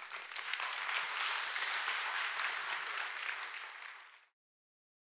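Audience applauding, a dense patter of many hands clapping that cuts off suddenly about four seconds in.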